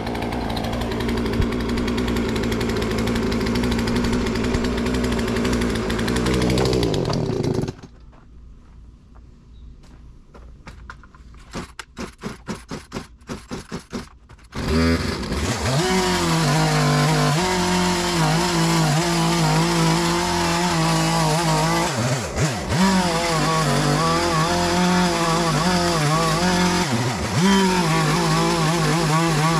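Two-stroke chainsaw running, then cutting out about eight seconds in. After a few seconds of quiet come several quick pulls of the starter cord, and the saw fires again and runs on, its pitch rising and falling as it cuts. The saw is hard to start.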